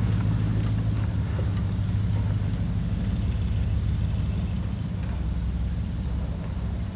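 ATV engine running low and steady, with crickets chirping in a regular pulse and insects buzzing high above it.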